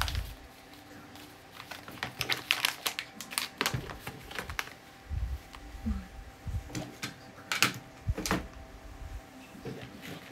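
Packaged accessory boxes being handled and set down on a table: an uneven run of clicks, taps and rustles, with a few dull thumps as boxes are put down.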